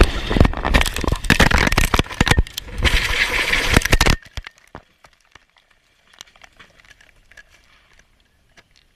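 A helicopter crashing: a rapid run of loud cracks and impacts of breaking material for about four seconds. It cuts off suddenly to near quiet with a few faint scattered ticks.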